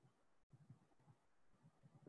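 Near silence: faint room tone, with a brief complete dropout about half a second in.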